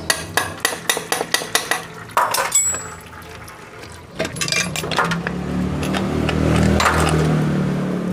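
A quick run of sharp metal clicks, about four a second, then scattered knocks and clinks as the clutch cover is worked loose and pulled off a Honda Supra Fit motorcycle engine, over a steady low hum.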